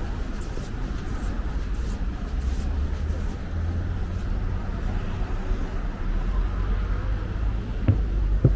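City street ambience: a steady low rumble of traffic, with two brief low thumps near the end.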